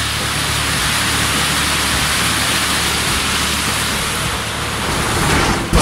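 Heavy downpour: a steady, loud hiss of rain.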